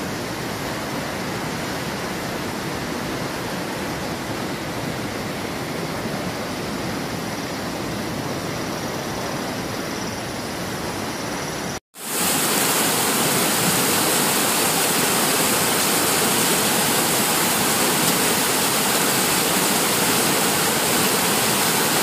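Steady rushing of a fast, rocky white-water mountain stream. About halfway through it drops out for an instant and comes back louder and brighter, the stream now right below.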